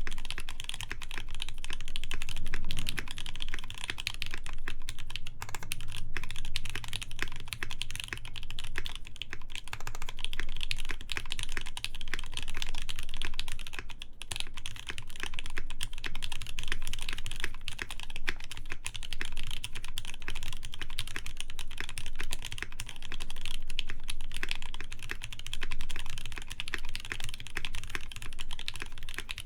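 Continuous fast typing on a mechanical keyboard with lubed JWK Snow White linear switches, PBT keycaps and a polycarbonate plate: a dense, steady run of key clacks.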